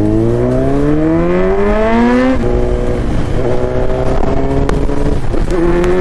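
Kawasaki Z900 inline-four with an Akrapovic exhaust accelerating hard. Its revs rise, drop at a gear change about two and a half seconds in, hold fairly steady, then climb again after a second shift near the end.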